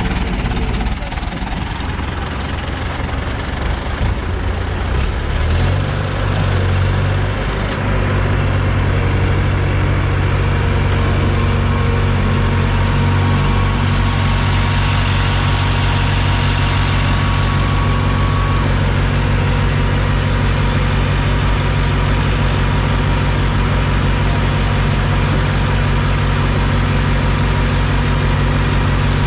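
Diesel engine of an ACE 12XW hydra crane running steadily while it pulls a stuck truck by a tow cable; the engine note fills out and holds steady from about six seconds in.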